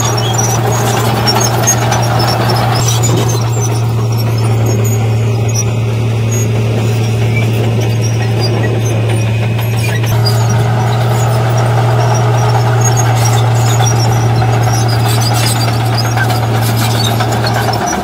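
Heavy earthmoving machinery working: a steady, loud diesel engine drone with squealing from a crawler bulldozer's steel tracks. The sound shifts at about three seconds and again about ten seconds in, when the footage changes between the bulldozer and a dump truck.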